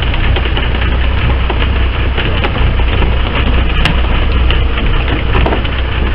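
Steady rumble and hiss on the deck of a fishing boat at sea, with scattered light knocks and taps.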